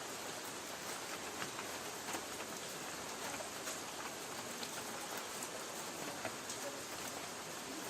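Light rain falling on a tin roof: a steady hiss with scattered individual drops tapping on the metal.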